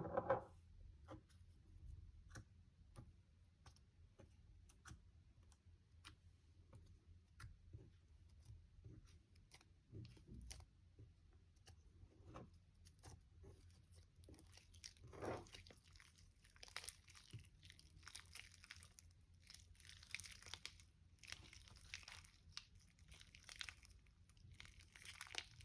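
Faint sticky crackling and popping of slime being handled and mixed. A sharp knock comes at the start, then scattered small clicks, with denser crackling in the second half.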